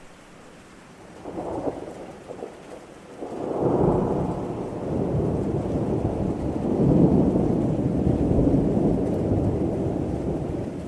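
Rain falling with thunder: a short rumble about a second in, then a long rolling peal from about three and a half seconds in that swells again midway and slowly eases off.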